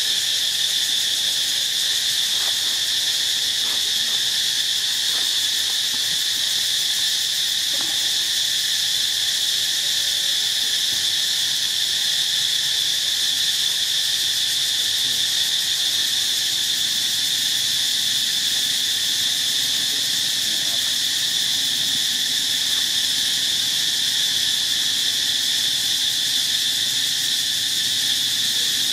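Steady, unbroken high-pitched drone of an insect chorus.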